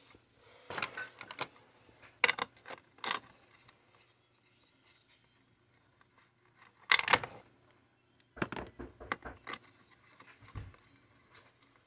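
Small metal chainsaw hardware clinking and clattering on a workbench as it is handled and set down. There are a few sharp clicks in the first three seconds, the loudest clatter about seven seconds in, then a run of lighter taps and a dull thump near the end.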